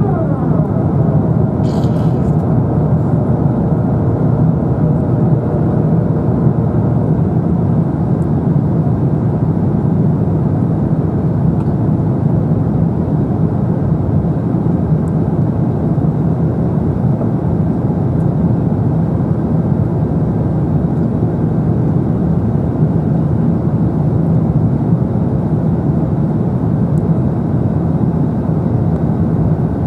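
Steady in-flight cabin noise of an Airbus A350-900 heard from a window seat: its Rolls-Royce Trent XWB engines and the rushing air blend into an even, low rumble. There is one faint click about two seconds in.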